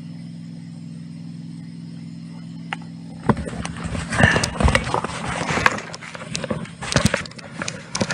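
A steady low hum for about three seconds, then a run of irregular clattering knocks and clicks.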